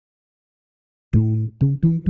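Intro music begins about a second in after silence: three short low notes with sharp attacks, rising in pitch.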